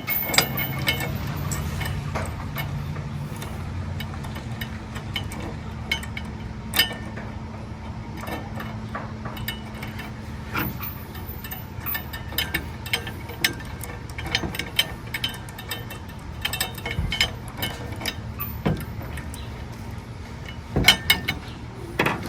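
Irregular metallic clinks and knocks of an anchor chain and stainless steel swivel being handled and fastened, over a steady low hum. The clinks come more thickly near the end.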